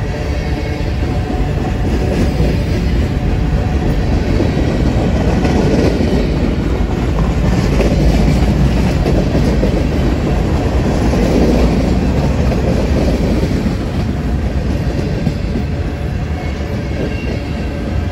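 Freight train cars rolling past close by: a steady rumble of steel wheels on the rails, a little louder in the middle and easing slightly near the end.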